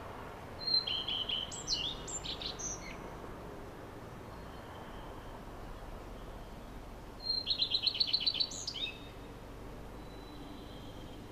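Bird song: two bursts of high chirps and quick trilled notes, about a second in and again about seven seconds in, over a faint steady background noise.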